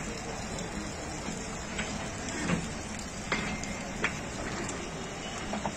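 Bangladesh Railway intercity passenger coaches rolling slowly: a steady rumbling rattle with a run of sharp wheel clicks about one every three-quarters of a second through the middle.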